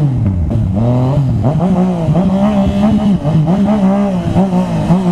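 Yamaha MT-09's inline three-cylinder engine under way, revving up and easing off several times, its pitch rising and dropping with the throttle as the bike accelerates.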